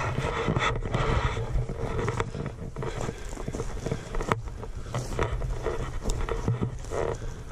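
Footsteps scuffing and crunching along a dirt trail: an uneven run of short scrapes and clicks over a steady low rumble.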